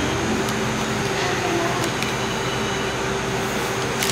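Indoor shopping-mall ambience: a steady hum and hiss, like ventilation, with faint background voices and a few soft handling clicks.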